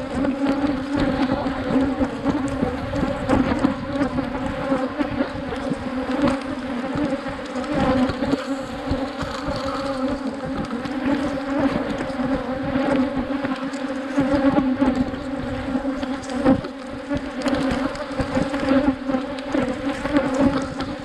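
A colony of Africanized honeybees buzzing loudly and steadily from an opened brood chamber, a dense hum with a few soft knocks as frames are handled.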